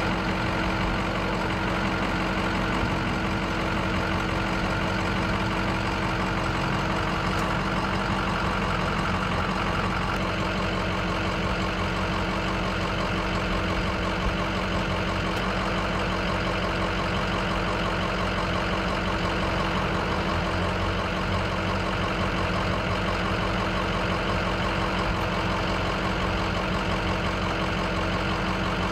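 Tow truck's engine idling steadily.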